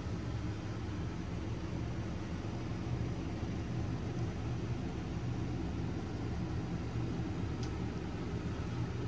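Steady low rumbling background noise with no distinct events, apart from one faint click about three-quarters of the way through.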